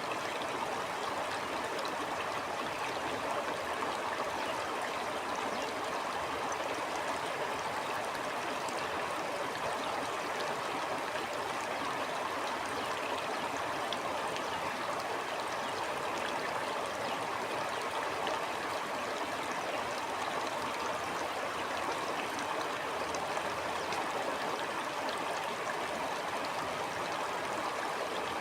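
Stream water flowing and babbling steadily, a continuous rushing with fine splashy detail.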